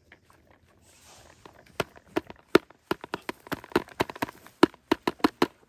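A handheld berry scoop raked through wild blueberry bushes, making a run of irregular sharp clicks and snaps that start about a second in and come several a second.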